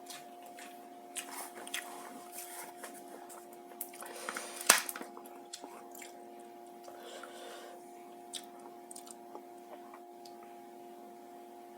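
Close-miked eating sounds: chewing with small wet clicks and smacks, and one sharp knock a little before halfway. A steady low hum runs underneath.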